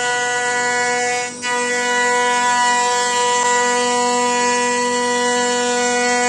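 CNC milling machine running with a steady high-pitched whine that holds one pitch, dipping briefly about a second and a half in.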